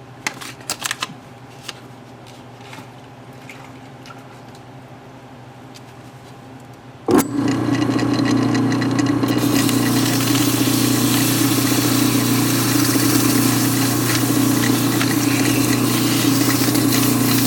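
A few light handling clicks, then about seven seconds in an electric motor switches on with a sharp click and runs steadily with a hum under a constant hiss. It is powering the spinning of a piston while 1000-grit sandpaper is worked against it.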